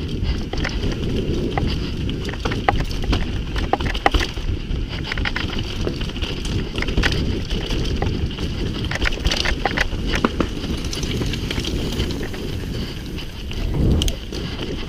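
Mountain bike moving over a rough dirt trail: a steady rumble of wind on the microphone with frequent sharp clicks and rattles from the bike.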